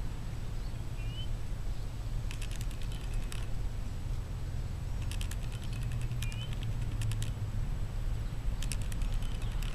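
Three short bursts of quick light clicking, like typing, over a steady low rumble.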